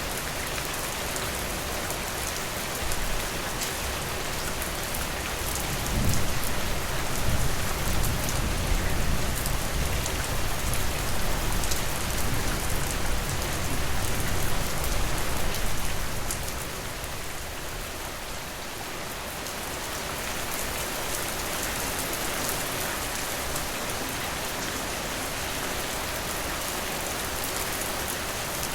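Steady rain falling. A few seconds in, a low rumble of thunder rolls in, lasts about ten seconds and fades away.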